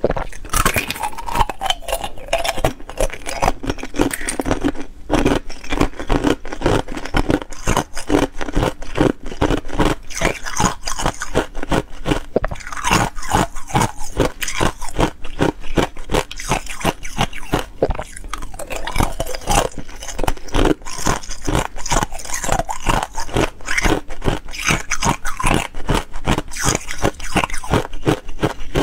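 Thin ice cubes bitten and chewed, an unbroken run of sharp cracks and crunches as the ice breaks between the teeth.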